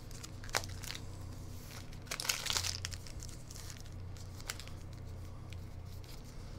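Trading cards being handled and flipped through by hand: soft rustling and a few light clicks, with a brief louder rustle about two seconds in.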